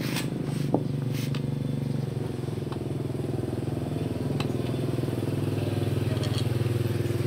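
Yamaha L2 Super's two-stroke single-cylinder engine running steadily, with a few light clicks near the start.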